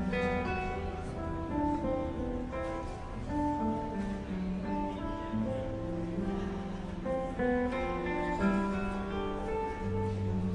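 Music played on guitar: a melody of plucked notes, one after another.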